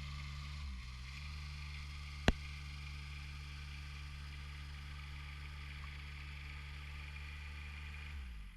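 A steady low mechanical hum with a sharp click a little over two seconds in; it cuts off abruptly at the end.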